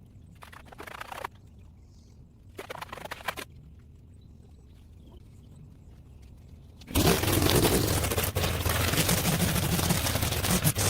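Two brief scrapes in near quiet, then about seven seconds in a small engine cuts in loud and runs steadily.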